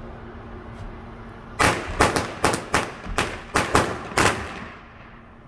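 Fireworks going off in a rapid volley of about nine sharp bangs over a little under three seconds, each one echoing briefly.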